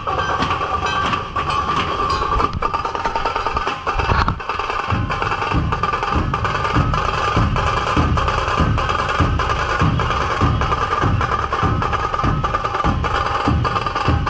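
Procession drum band playing: rapid sharp ticking of small drums over heavy bass-drum beats that settle into a steady pulse of about two a second some four seconds in, with a steady high note held over the drumming.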